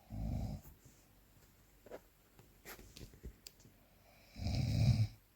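Snoring during sleep: two low snores about four seconds apart, the second longer and louder than the first, with faint small clicks in between.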